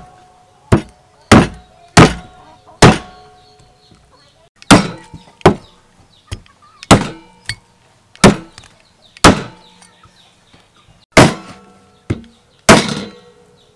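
Steel cleaver chopping pork leg through skin and bone on a round wooden chopping block: about a dozen sharp, irregularly spaced blows with a pause of about two seconds a few seconds in, many followed by a brief ringing of the blade.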